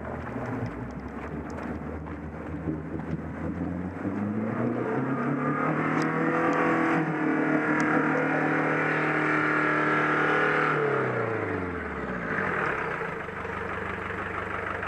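Off-road 4x4's engine revving up over a couple of seconds, held at high revs for about six seconds, then dropping back to a low running speed.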